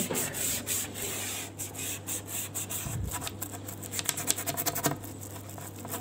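Toothbrush bristles scrubbing in quick, irregular short strokes in the grooves of a painted kitchen cabinet panel, scraping out trapped dust.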